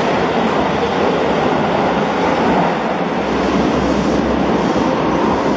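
A subway train running on a platform track in an underground station: a steady rumble and rush of noise that swells slightly in the low end a few seconds in.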